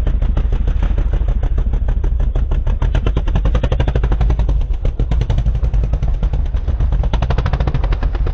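ATV engine running hard at low revs, a loud, rapid, even chugging beat, as the quad works through deep muddy water.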